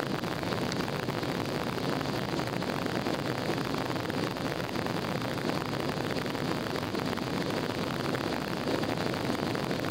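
Steady jet engine and airflow noise inside an airliner's cabin during the climb after take-off.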